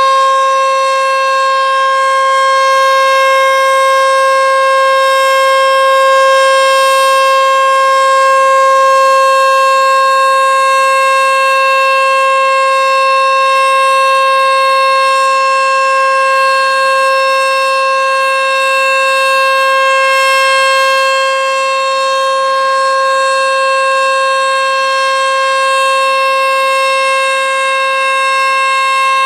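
Sentry 14V-B outdoor warning siren sounding its steady Alert signal: one loud, unbroken tone held at a level pitch, swelling and easing slightly in loudness.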